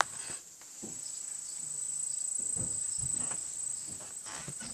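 Steady, high-pitched trilling of insects, with a brief click at the start and a few faint low rustles.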